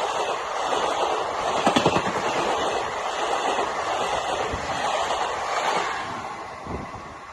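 Express train rushing past at high speed, with a dense roar of wheels and air and a few heavy thumps of wheels over rail joints. The sound fades away near the end as the train recedes.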